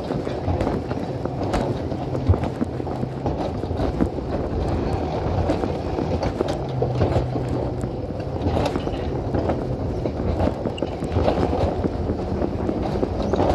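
Alpine coaster sled running down its tubular steel track: a steady rumble of the wheels on the rails, with frequent short rattles and clicks.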